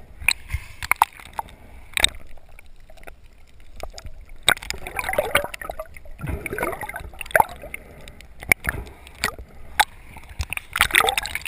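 Water gurgling and sloshing, heard underwater through a GoPro's waterproof housing, with many sharp clicks and pops. It surges louder briefly near the end as the camera comes up to the surface.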